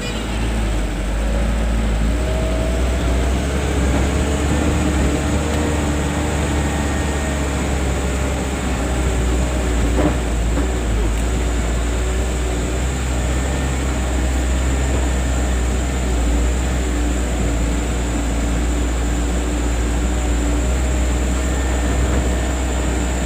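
Truck engine running steadily under way, a loud low drone heard from inside the cab, with a single knock about ten seconds in.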